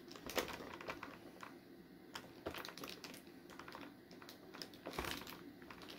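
Faint, scattered clicks and light crinkling of an action figure's plastic packaging being handled while tape holding the accessories in is picked off.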